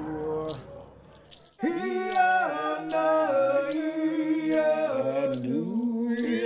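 Music of layered singing voices holding long notes and sliding between pitches. It swells in after a short lull about a second and a half in.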